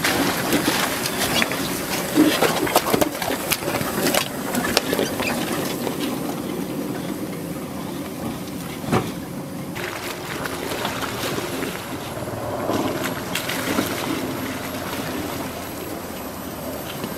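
Slow off-road crawl by a Chevrolet Colorado ZH2 hydrogen fuel-cell pickup: tyres crunching and grinding over rocks and splashing through shallow creek water, with sharp knocks from stones. There is no engine note.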